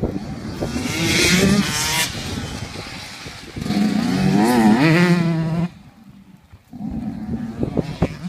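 Dirt bikes, one of them a KTM 150 SX two-stroke, revving hard over rough ground, their engine pitch wavering up and down. The loudest burst of throttle is cut off sharply about two-thirds of the way in, and the engines pick up again more quietly near the end.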